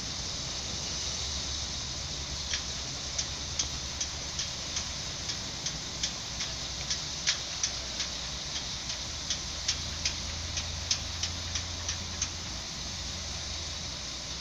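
BRB Alstom Coradia LINT diesel multiple unit standing at the platform, its engine giving a steady low idling hum. A run of sharp clicks, about two to three a second, starts a couple of seconds in and stops about two seconds before the end.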